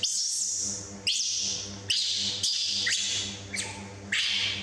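Baby macaque screaming: a string of shrill cries, each starting sharply and falling in pitch, about one every half second to second. They are the begging screams of a hungry infant wanting food.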